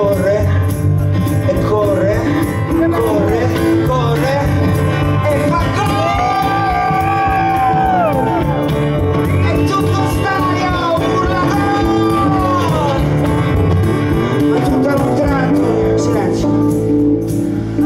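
A rock band playing live, with acoustic guitar, bass guitar, drums and keyboard, and a man singing long held notes that bend in pitch through the middle of the passage.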